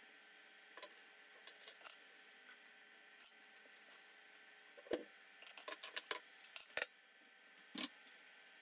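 Light clicks and knocks of a spatula and other utensils against a steel frying pan on an induction hob while an omelette is folded, with the loudest knock about five seconds in and a quick run of clicks after it. A faint steady hum from the hob runs underneath.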